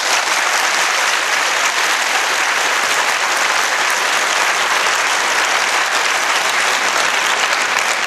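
Audience applauding: dense, steady clapping.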